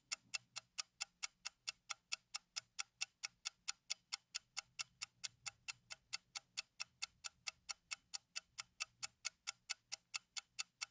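Ticking-clock sound effect: even, sharp ticks at about four a second, standing alone with the room sound cut away.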